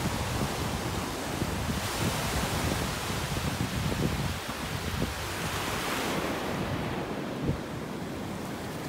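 Ocean surf breaking and washing up a sandy beach in a continuous rushing hiss, with wind buffeting the microphone as a low rumble. The hiss softens near the end.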